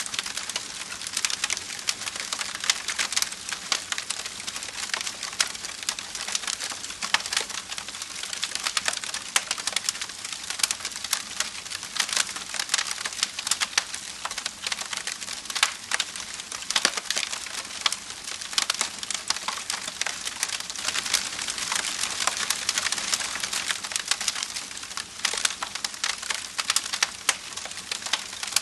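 Wood fire crackling steadily, with many small irregular pops and snaps over a soft hiss.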